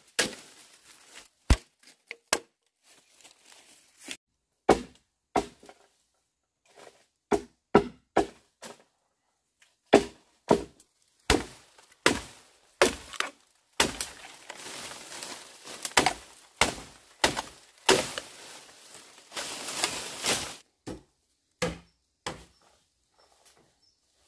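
Bamboo being chopped with a blade: sharp chopping strikes at an irregular one or two a second, with two longer rasping stretches, one about halfway through and one near the end.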